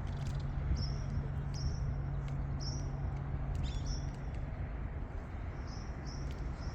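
A small bird chirping repeatedly, short high chirps about once a second that come a little closer together near the end, over a steady low hum and a background hiss.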